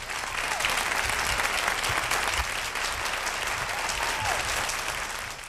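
Studio audience applauding after a song ends, with a couple of faint calls from the crowd. The applause cuts off suddenly at the end.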